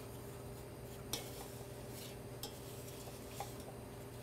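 Wooden spoon pushing and scraping granulated sugar, just beginning to melt, around a stainless steel saucepan: a few faint scrapes and light taps over a steady low hum.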